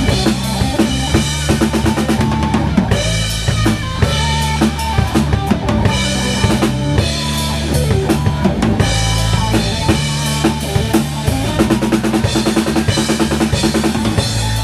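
Rock band playing loud: a drum kit with dense, rapid kick and snare hits under electric guitar.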